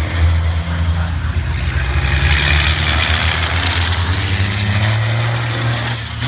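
Racing trucks' diesel engines running past on the circuit, a steady deep drone throughout, with a broad hissing rush swelling up in the middle and fading again.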